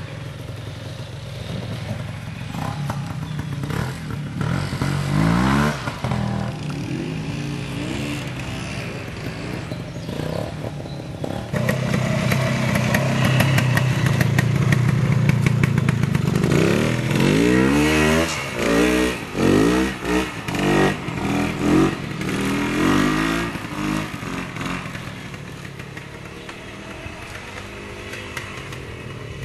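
Vintage trials motorcycle engine pulling at low revs as the bike climbs a steep section. It is held louder and steady for a few seconds near the middle, then blipped up and down about once a second before settling back to a lower, quieter run near the end.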